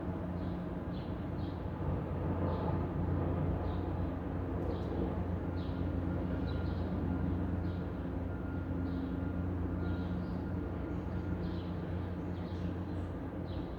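City street ambience: a steady rumble of traffic, with short high bird chirps repeating about once or twice a second throughout.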